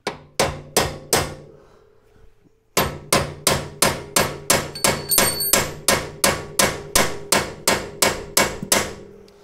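Hammer blows on an MGB's front suspension, knocking the damper arm free where it is caught in the bushes on its bolt, each blow ringing metallically. Three quick blows, a short pause, then a steady run of about eighteen at roughly three a second.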